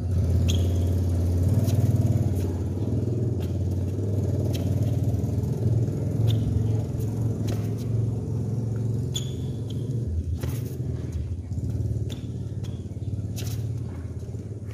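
A steady low rumble, over which court shoes give scattered sharp taps and a few brief squeaks as a player moves through badminton footwork steps.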